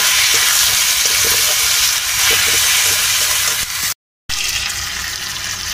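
Onion and spice masala sizzling in hot oil in a kadhai, stirred with a spatula. The sound cuts out completely for a split second about four seconds in, then comes back a little quieter.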